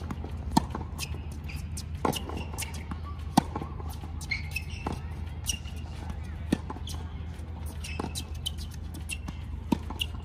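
Tennis rally on a hard court: racket strings striking the ball and the ball bouncing, a sharp pop every second or two, the loudest about three and a half seconds in. Short high squeaks come between some of the shots.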